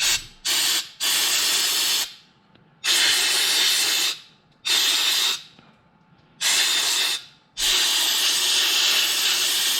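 Compressed-air blow gun hissing in repeated bursts, several short and the last held about three seconds, blowing carburetor cleaner and gunk out of the small passages of a snowblower carburetor jet.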